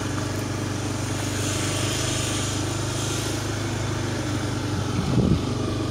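Motorcycle engine running steadily while riding, with road and wind noise; wind starts buffeting the microphone about five seconds in.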